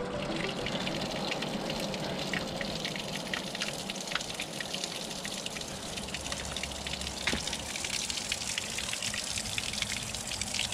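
A small waterfall: a thin stream of water pouring out of a mossy rock face and splashing onto the rocks below, a steady rush with many small splashes.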